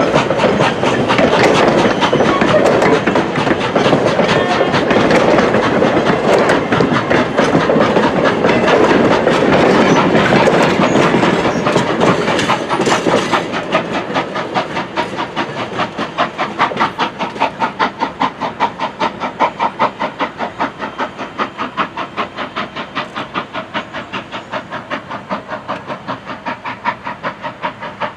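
Strasburg Rail Road steam train passing close, its wheels and coaches rumbling loudly on the rails, then drawing away. About halfway through it fades into a steady rapid chuffing of the locomotive's exhaust, three to four beats a second.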